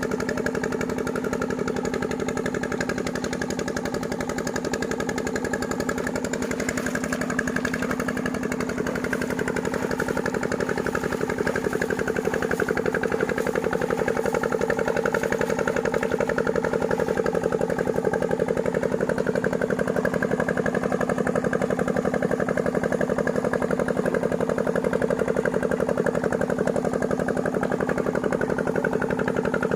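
An engine running steadily at constant speed with a fast, even chugging pulse, a little louder after about twelve seconds.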